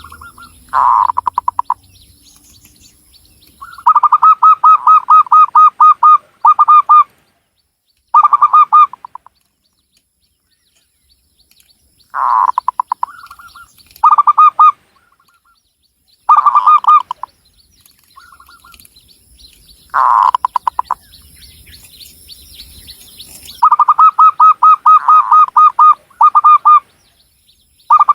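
Zebra dove (perkutut) cooing: repeated phrases of quick, rolling staccato coos, some short and some drawn out for two or three seconds, with pauses between phrases.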